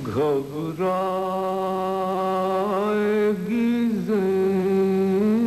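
A man reciting a noha, an Urdu Shia mourning elegy, in a melodic chanted voice. He holds long, slightly wavering notes, with a short gliding phrase at the very start.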